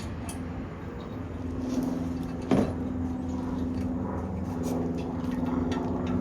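A steady low mechanical hum like a running engine, with light clinks of metal parts being handled and one sharp metallic knock about two and a half seconds in.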